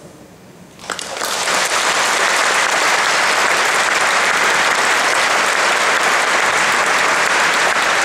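Audience applauding: the clapping starts about a second in, builds quickly and then holds steady.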